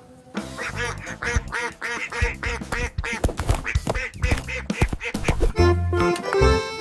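A rapid run of duck-like quacks, about four a second, from about half a second in until near the end, when background music with a heavy beat comes back.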